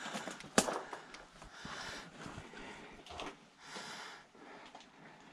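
A person breathing hard close to the microphone while scrambling over rock, breaths coming about once a second, with one sharp knock about half a second in.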